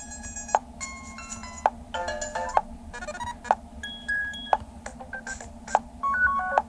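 Toscido M863's speaker playing short ringtone previews one after another. There are about seven different electronic melodies, each cut off after roughly a second by a sharp click as the next one starts.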